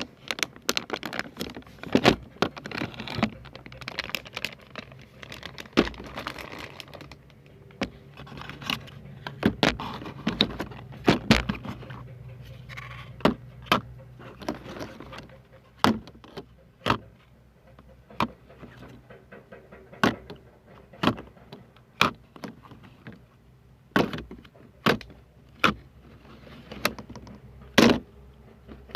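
Close-miked tapping and clicking on small hard objects. The taps come thick and irregular, mixed with light rustling, for the first half or so, then thin out to sharp single taps about once a second.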